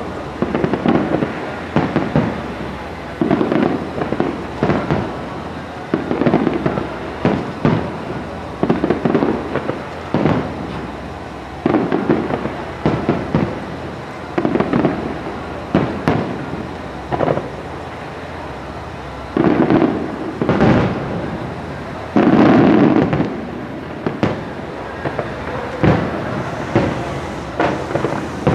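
Aerial firework shells bursting in quick succession: a low boom every second or two, each followed by crackling, the loudest bursts coming in a cluster about two-thirds of the way through.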